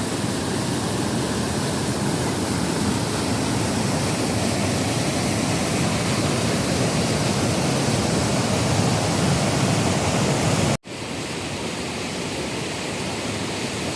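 Steady rush of falling water, a loud even roar with no distinct events. About 11 seconds in it cuts off for an instant, then resumes slightly quieter.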